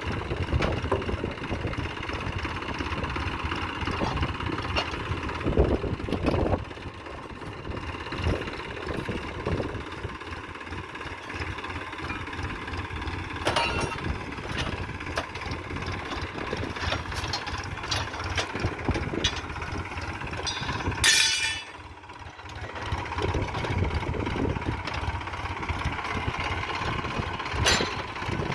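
Diesel engine of heavy farm machinery running steadily, with frequent short knocks and clanks. About two-thirds of the way through comes a brief loud hiss-like burst.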